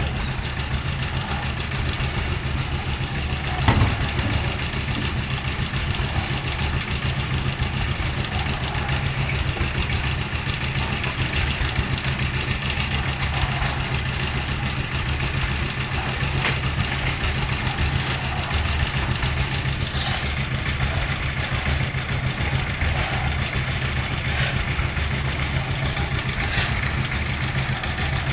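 Concrete mixer machine's engine running steadily, with a loud knock about four seconds in and scattered sharp clicks in the second half.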